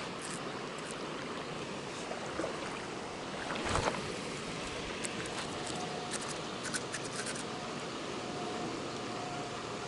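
Small river flowing steadily, with one brief louder noise about four seconds in and a few light clicks shortly after.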